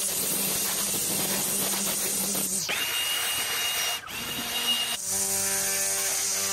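String trimmer running steadily, its spinning line cutting grass, with the whirring tone shifting a couple of times.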